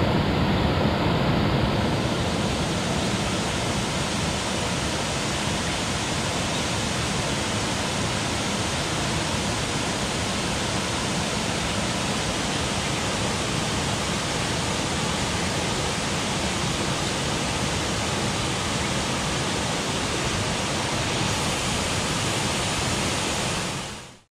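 Steady rush of fast-flowing water, such as a waterfall or swollen stream, fading out quickly at the very end.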